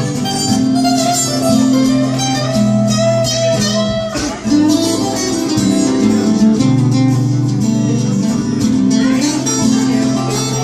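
Instrumental break of a live Turkish song: guitar-led band music with sustained chords and a melody line, and no singing.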